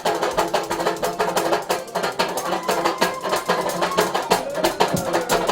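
Live brass band music: a fast, busy drumbeat with held notes from the band underneath.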